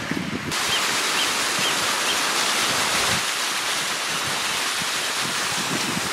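Small mountain waterfall splashing down over rocks: a steady rush of water that cuts in suddenly about half a second in.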